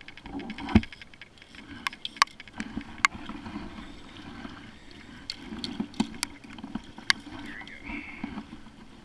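Water splashing and dripping beside a plastic kayak as a landing net is lifted out and brought aboard, with several sharp knocks of gear against the hull, the loudest about a second in.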